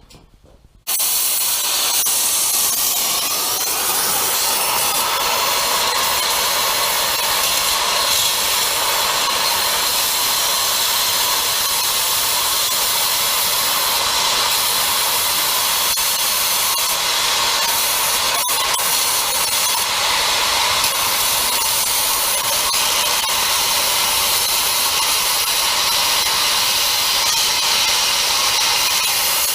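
Cutting torch hissing loudly and steadily as it cuts off engine mounts, starting about a second in.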